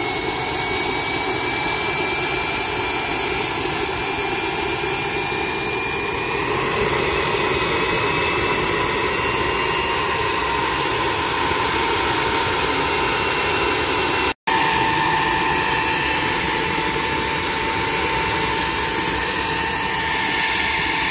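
KJ66 model jet turbine running steadily on a test bench: a loud rushing noise with thin high whines over it, the whines creeping up slightly in pitch in the first few seconds. The sound drops out for an instant about fourteen seconds in.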